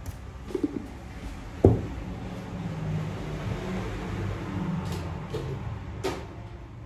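Kitchen handling knocks as a glass salt jar is put away: one sharp knock a little under two seconds in, with lighter knocks and clicks before and after, like a cupboard door and things set on the counter.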